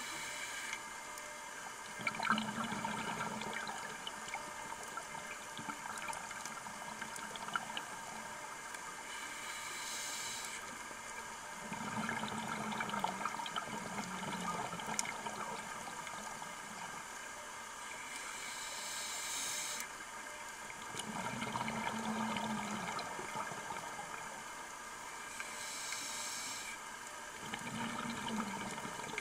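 A scuba diver breathing through a regulator underwater. A short hiss on each inhale is followed by a longer burst of bubbling on each exhale, in a slow cycle repeating about every seven to nine seconds, over a steady faint crackle.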